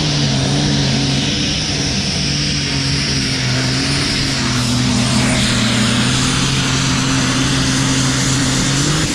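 A heavy engine running at a steady speed, a constant low drone that doesn't rise or fall.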